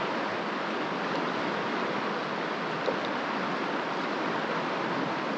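River water rushing steadily over riffles, an even hiss, with a single small click about three seconds in.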